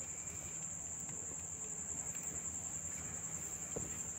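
Cotton cloth being unfolded and handled, soft rustling with a small knock near the end, under a steady high-pitched whine.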